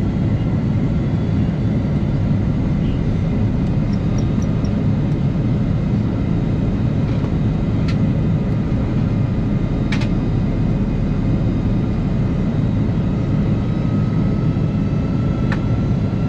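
Steady engine and airflow noise inside the passenger cabin of an Airbus A330 airliner, with two faint clicks midway and a faint tone rising slowly near the end.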